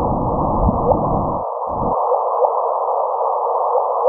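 Black hole sonification: astronomical data converted into sound, heard as an eerie electronic drone. A steady tone sits under a rushing hiss, with faint rising chirps about twice a second. A deep rumble beneath drops out about a second and a half in.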